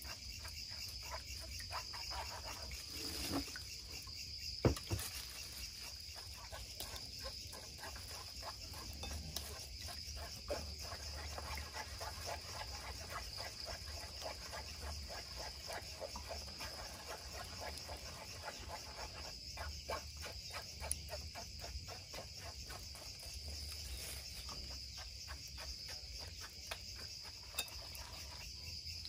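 Night insects trilling steadily in a high, continuous chorus, with a low hum beneath. A few small clicks of dishes and utensils, the loudest a sharp knock about five seconds in.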